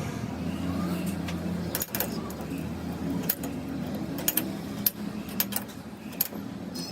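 A steady low machine hum with sharp metallic clinks and ticks, about eight of them, scattered through the middle and latter part.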